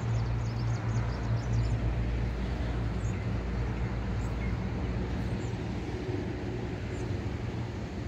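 Small birds chirping in short high notes, thickest in the first couple of seconds and then scattered, over a steady low rumble.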